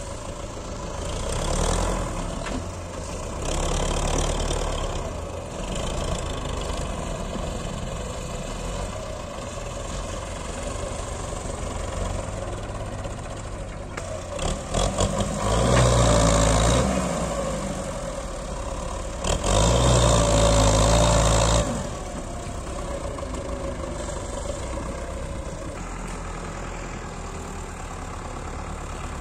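Belarus 510 tractor's diesel engine running under load while it hauls a trolley heaped with soil, swelling into louder revs several times, the two longest surges about halfway through.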